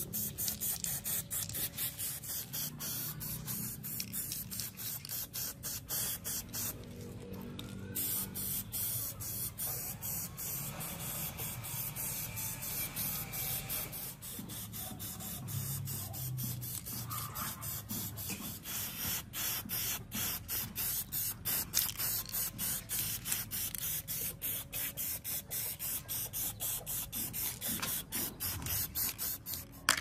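Spray paint hissing onto a small metal RC car wheel hub, released in quick repeated bursts several times a second.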